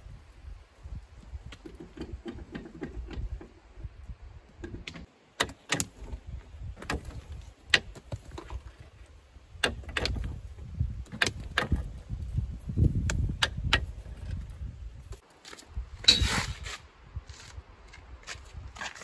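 Irregular clinks, taps and scrapes of a metal hand tool against concrete blocks during block-wall work, with sharp knocks scattered throughout.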